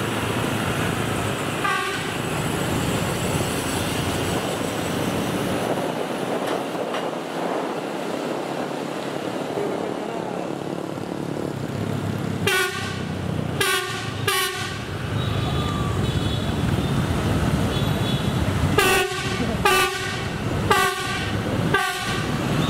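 Horn of the KAUJRL track-measurement train sounding in short blasts over a steady running noise: one blast about two seconds in, three in quick succession about halfway through, and four more near the end.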